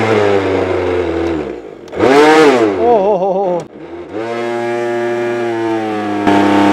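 Mixer grinder motor, rebuilt as a cotton candy spinner, running as its speed knob is turned: its pitch sags and dips twice and swings up and down, then settles into a steady hum and gets louder near the end as the speed is raised and sugar floss spins off the head.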